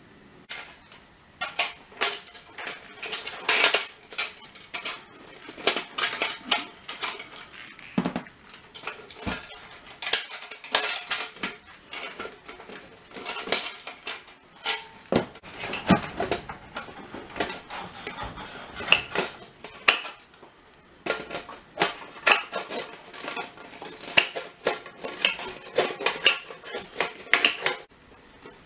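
Metal recessed light can being handled and its spring clips taken off: many irregular clinks, clanks and rattles of thin metal, some ringing briefly.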